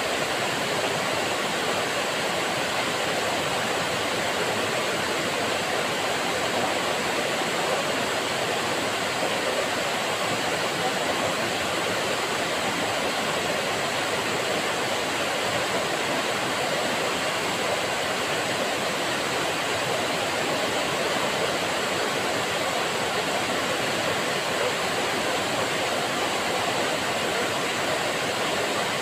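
Waterfall sheeting down a broad rock face into a plunge pool: a steady, unbroken rushing of falling water.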